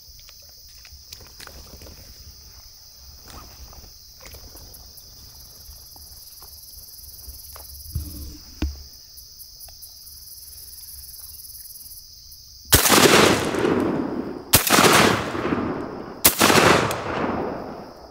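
Three shotgun blasts about a second and a half to two seconds apart, each echoing away for over a second: duck hunters shooting at ducks on the water at first shooting light. Before the shots there is a steady high insect hum from the marsh.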